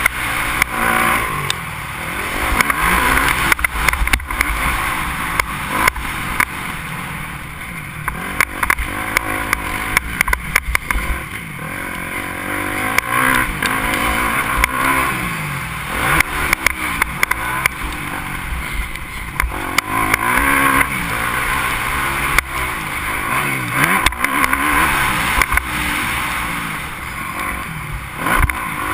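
Motocross bike engine revving hard and dropping back again and again through the gears as it rides over the dirt track, with wind buffeting the helmet-mounted microphone and knocks from the bumps.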